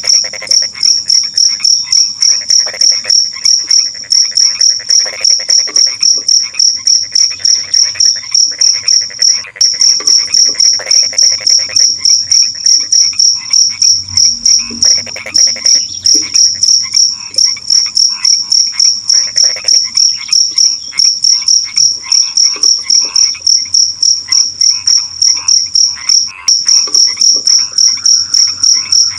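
A cricket chirping in a loud, high, steady pulse of about four chirps a second, with a brief break twice. Frogs croak more quietly underneath.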